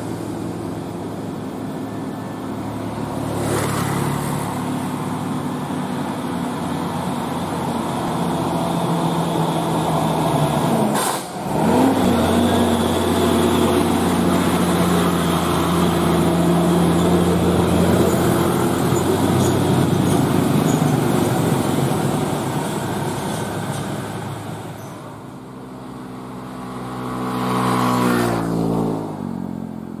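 Hino container truck's diesel engine running loud as it climbs a steep grade, with a brief dip about eleven seconds in. Near the end the engine pitch rises as it accelerates.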